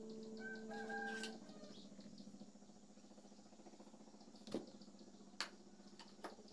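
Marker pen writing on a whiteboard, with a few sharp taps in the second half. Near the start there is a faint bird call, like a distant chicken.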